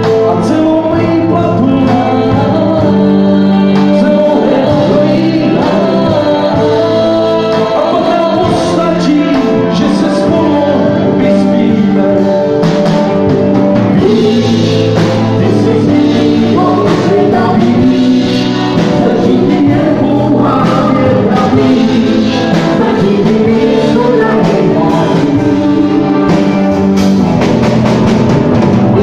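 Live rock band playing a song, with a male lead vocal over electric guitars and a drum kit.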